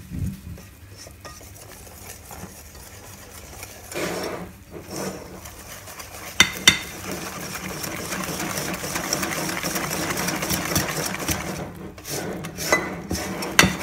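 Wire balloon whisk beating flour into thick cake batter in a glass bowl, the wires scraping and clicking against the glass. The whisking is light at first, then fast and steady from about six seconds in, with a couple of sharp clinks.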